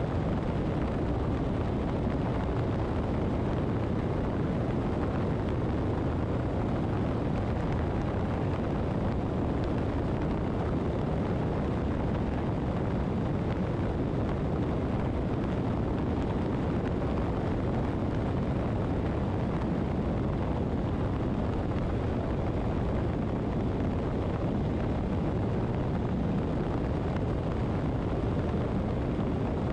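Steady wind rush and buffeting on a motorcycle-mounted camera's microphone, with the motorcycle's road noise beneath, while riding at a constant cruising speed.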